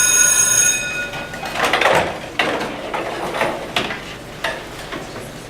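A school bell ringing with a steady, high tone cuts off suddenly about a second in, followed by scattered knocks and clatter of things being moved about on a stage.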